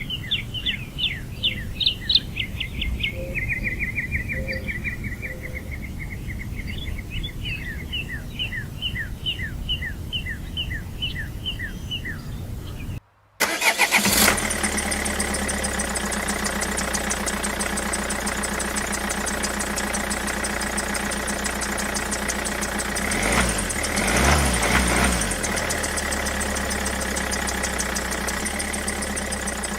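A long series of quick high chirps over a low rumble. After a sudden cut, a small motor runs steadily with a fast, even whir that swells briefly about ten seconds later.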